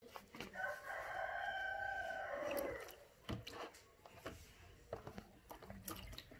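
A rooster crowing: one long call of about two seconds that drops in pitch at the end. Afterwards come small knocks and light water splashes as a kitten is lowered into a plastic basin of water.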